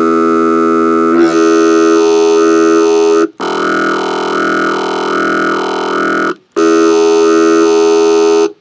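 Distorted FM synth bass played as three long held notes with short breaks between them. A vowel-like wobble sweeps up and down about once every three-quarters of a second.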